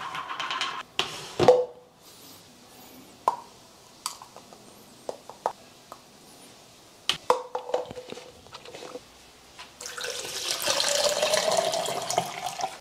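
Scattered clicks and knocks of a protein tub lid and plastic scoop being handled, then, for the last three seconds or so, water poured from a jug into a plastic shaker bottle, its pitch rising as the bottle fills.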